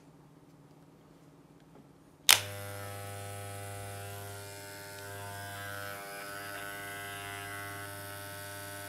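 Moser 1400 magnetic-motor hair clipper switched on with a click a little over two seconds in, after a short near-quiet pause, then running with a steady, not very loud electric buzz.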